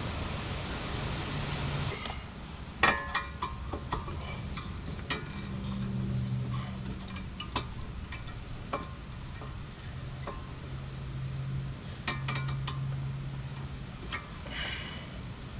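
Scattered sharp metallic clinks and taps of brake parts (slide pins, pad clips and pads) being handled and fitted on a car's front brake caliper, with a cluster of quick clinks near the end.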